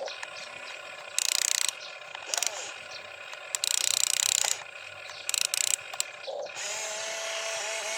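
Small electric gear motors of a toy RC construction vehicle whirring in several short bursts, then running longer near the end.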